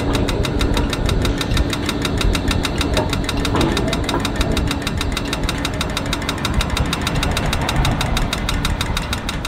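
An engine idling close by: a steady, fast, even knocking, about eight beats a second, over a low hum. It begins to fade out at the very end.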